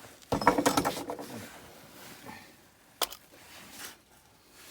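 Heavy gunmetal gear being handled and shifted onto a scale. A clattering metal rattle comes near the start, then one sharp knock about three seconds in as it is set down.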